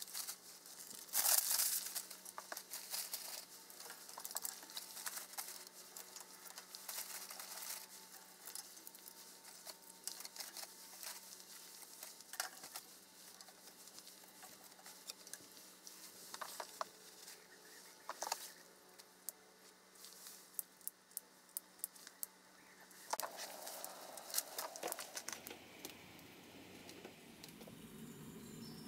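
Newspaper being crumpled and dry twigs laid over it in a grill's firebox: an irregular run of crinkling, rustling and sharp clicks of wood.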